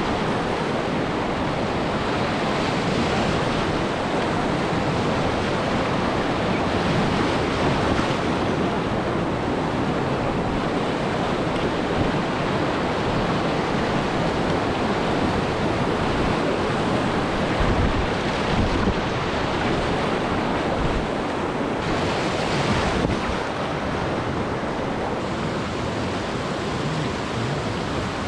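Rushing whitewater of a swollen mountain river, a steady loud roar, with wind buffeting the microphone in gusts, strongest about two-thirds of the way through.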